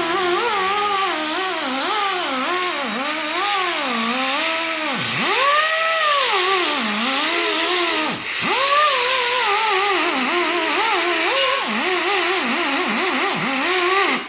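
Air-powered sander grinding rust off a brake rotor's face. Its whine keeps dropping and rising in pitch as the tool is pressed into the metal and eased off, over a steady hiss.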